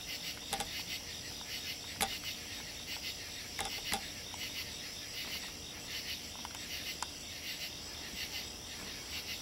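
Night chorus of crickets and other insects chirring steadily, with a few sharp clicks scattered through it, the loudest about two seconds in.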